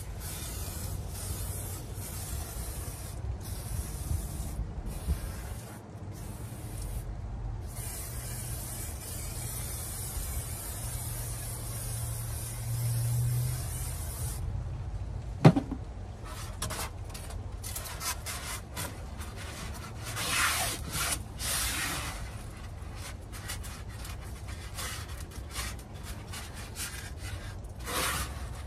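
Hiss of a hand-held aerosol can sprayed in long bursts with short breaks along the seams of foam insulation board. A single sharp click about halfway through, then shorter, broken rubbing and scraping sounds.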